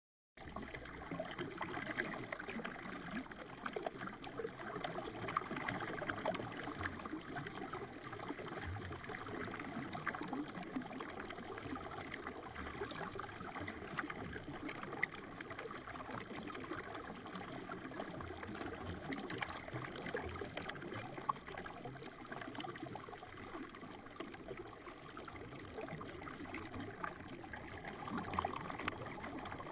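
River water flowing, played back slowed down: a steady rush full of small gurgles and splashes.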